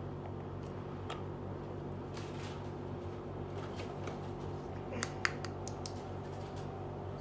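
Small plastic toy pieces clicking and tapping as they are handled and set down, with two sharper clicks about five seconds in, over a steady low hum.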